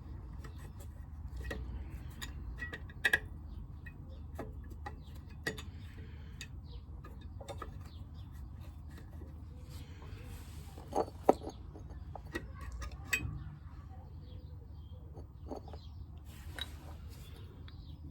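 Scattered light clicks and taps of metal brake pads and the pad clip being handled and fitted into a motorcycle brake caliper, with a few sharper clicks about three seconds in and again about eleven seconds in, over a steady low hum.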